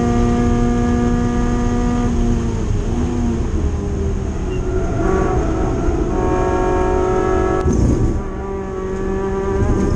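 Spec MX-5 race car's four-cylinder engine heard from inside the cockpit, running at steady high revs. About two seconds in the engine note falls away as the car slows, then it picks up again and holds at steady revs. A short, loud rumble comes near the end.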